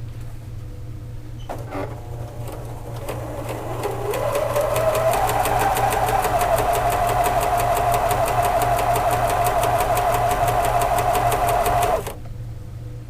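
Pfaff Expression 2034 electronic sewing machine stitching: a few clicks, then the motor speeds up over about two seconds into a fast, steady run of stitches. It stops abruptly near the end.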